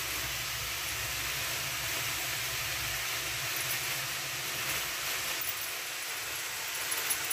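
Grated carrots frying in hot oil in an aluminium kadhai, a steady sizzling hiss.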